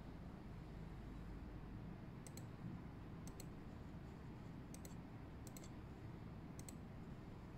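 Faint sharp clicks of a computer mouse button, about nine of them, several in quick pairs about a tenth of a second apart.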